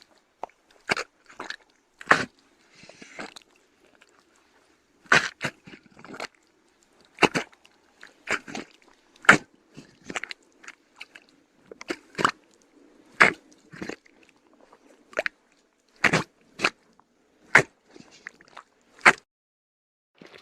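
Feet sinking into deep mud, one wet step at a time, at an irregular pace of about one a second, sometimes two in quick succession, with a short pause early in the sequence.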